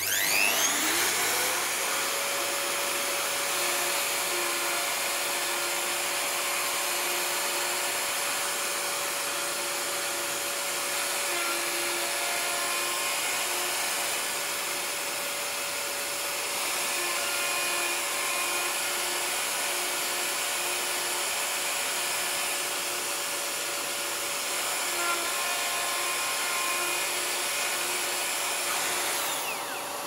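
Festool OF 1400 plunge router with a 20 mm straight bit spinning up, then running steadily as it cuts a 40 mm hole through a wooden board, guided around a template by its copy ring. It spins down near the end.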